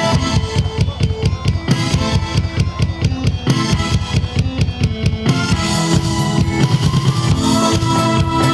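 Instrumental section of a song with a drum break: rapid kick and snare hits with little melody for about five seconds, then the full band sound with sustained melody instruments comes back in.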